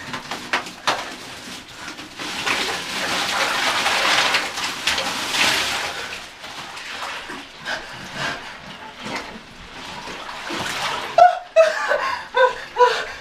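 Bagged ice cubes being poured from a plastic bag into a bathtub of water, a dense rattling, splashing rush for a few seconds, then scattered clatter and splashes as the last of the ice is shaken out. Several short vocal exclamations come near the end.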